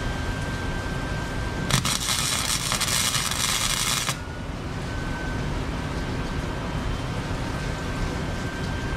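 Wire-feed welder tack-welding a pipe onto a small-engine carburetor intake flange: one crackling arc buzz about two seconds long, starting a little under two seconds in, over steady background noise.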